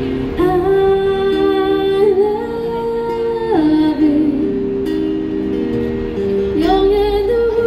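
A woman singing long held notes to her own acoustic guitar accompaniment, through a small street amplifier.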